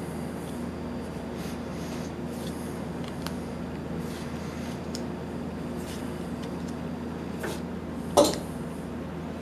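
Trading cards being slid off a hand-held Yu-Gi-Oh deck one at a time, faint rustles and light clicks over a steady low hum. About eight seconds in comes one short, much louder sharp sound.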